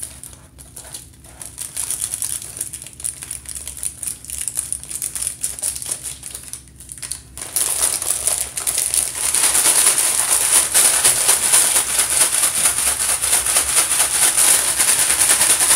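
Plastic snack bag crinkling as it is handled, then from about halfway a louder, continuous rattling crinkle: a bag of crushed dry ramen-style noodles being shaken up with its seasoning.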